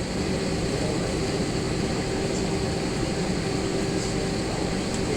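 Steady cabin noise inside an Airbus A321, its IAE V2500 engines running at a low, even power with a constant hum over the rush of the air conditioning.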